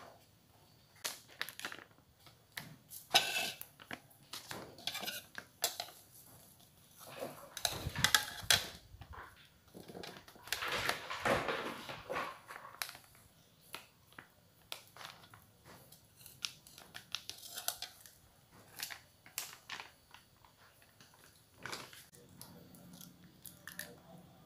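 Kitchen handling sounds: a plastic packet of crispy-fry batter flour crinkling as flour is tipped into a plastic bowl, with scattered clicks and knocks of a metal spoon against the bowl. The rustling comes in two longer stretches about a third and halfway through.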